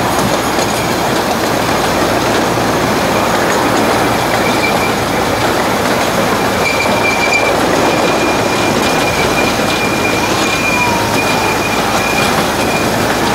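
15-inch gauge ride-on train rolling along the rails, its wheels rumbling steadily. From about five seconds in, a steady high-pitched wheel squeal sets in and holds as the train rounds a curve.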